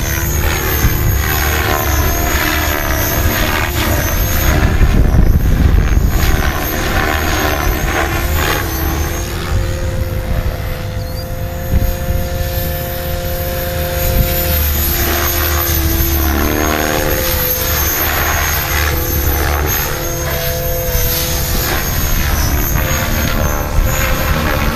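HobbyKing HK-600 electric RC helicopter on a 6-cell pack flying overhead: the main rotor whooshes and the motor whines steadily. The pitch shifts up and down as it manoeuvres.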